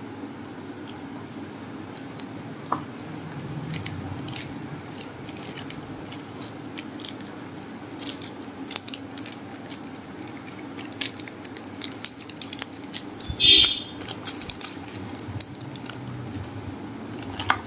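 Small plastic action-camera mount parts and zip-lock bags being handled: scattered light plastic clicks, taps and crinkles, mostly in the second half, with one louder brief rustle about three-quarters of the way through. A steady low hum sits underneath.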